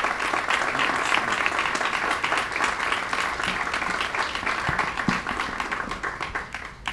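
Crowd applauding, a dense steady clapping that thins out near the end.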